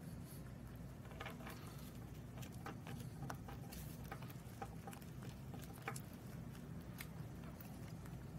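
Rabbit chewing a dried fig: irregular small crunching clicks, several a second, over a steady low hum.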